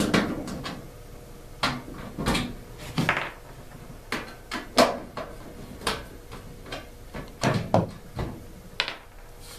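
Irregular clicks and knocks from a screwdriver and a front-load washer's lower front panel as the two screws under the panel are undone and the panel is handled, about ten sharp knocks in all.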